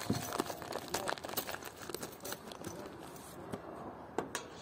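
Scattered light clicks, taps and rustling as hands handle a steel roof rack and its bolt-on shackle fittings.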